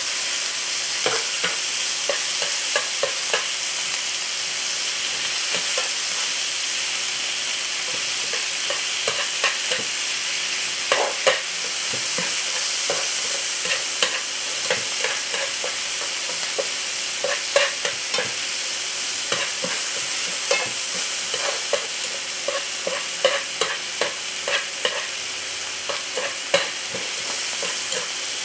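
Food frying with a steady sizzle, over which a utensil clicks and knocks irregularly against the cooking surface as the food is stirred and turned.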